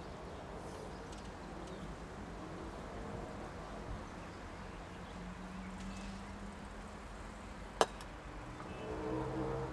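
A croquet mallet strikes a ball once, a single sharp crack about eight seconds in, over a faint steady outdoor background.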